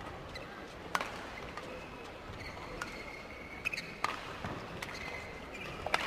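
Badminton rally: sharp racket hits on the shuttlecock, a second or two apart, with shoes squeaking on the court floor over the murmur of the arena.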